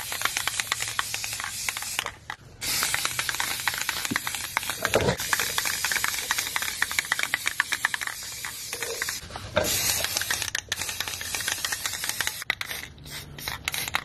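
Aerosol spray-paint can spraying in long hissing bursts, broken by short pauses about two seconds in and again near the end.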